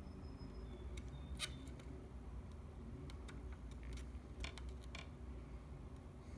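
Scattered light clicks and ticks, a few close together about a second and a half in and more in the middle, over a low steady hum.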